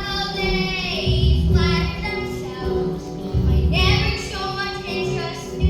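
Children singing a song with instrumental accompaniment; the sung phrases come in long, gliding lines over a steady bass.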